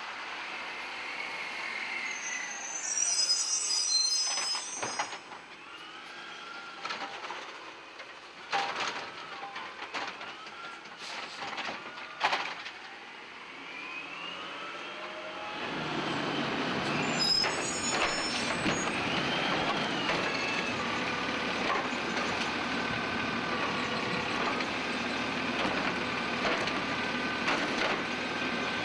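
Automated side-loader garbage truck (DaDee Scorpion ASL) working a route: its engine rising and falling in pitch, with short high squeals about three seconds in and again near seventeen seconds. Several sharp knocks fall in between, the loudest about twelve seconds in. From about fifteen seconds it settles into a steadier, louder run.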